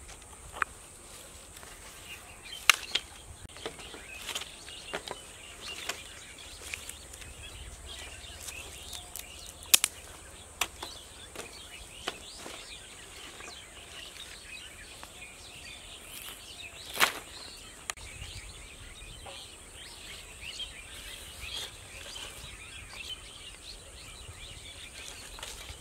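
Dry wooden sticks knocking and cracking as they are handled and gathered: a dozen or so sharp, scattered knocks, the loudest about 3, 10 and 17 seconds in. Birds chirp steadily in the background.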